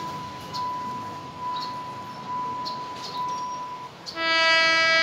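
Level-crossing warning signal sounding as a repeated steady electronic tone. About four seconds in it stops, and a loud train horn sounds one long blast of about two seconds.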